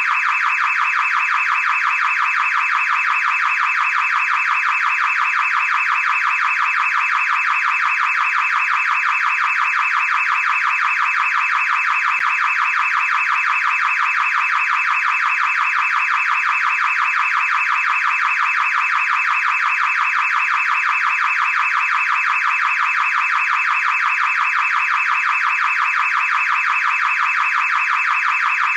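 Car alarm sounding: a loud, high-pitched, rapidly pulsing tone that keeps going without a break or change.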